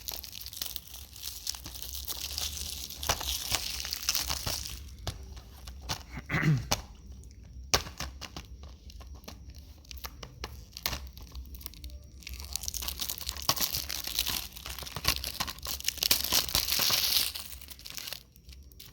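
Plastic shrink wrap being torn and peeled off a Blu-ray movie case, crinkling in two long stretches with scattered clicks and handling knocks between them.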